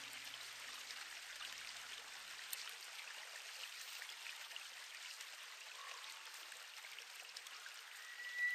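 Faint, steady rush of running water, like a stream, as the low notes of music die away in the first second.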